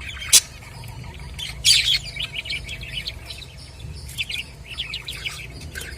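A flock of budgerigars chattering: a dense run of short chirps and warbles, with a sharp click about a third of a second in.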